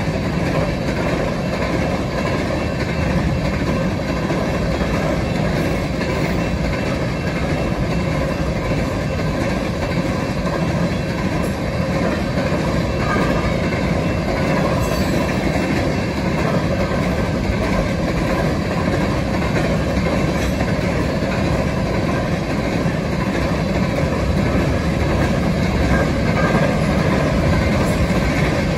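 Freight train of covered hopper cars passing at speed: the steady noise of steel wheels running on the rails.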